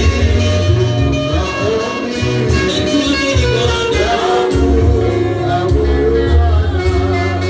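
Gospel praise-and-worship song: voices singing over a band, with a bass line stepping between low notes.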